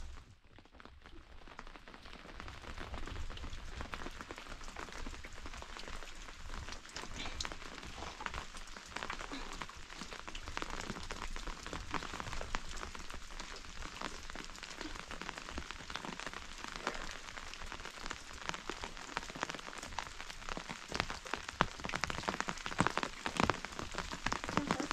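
Steady rain falling on rocks and bare ground, with individual drops ticking through it. It swells in over the first couple of seconds, and the drop ticks grow sharper near the end.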